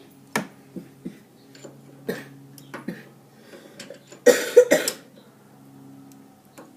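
Scattered sharp clicks and knocks of hand tools on metal, then a person coughs twice about four seconds in, over a low steady hum.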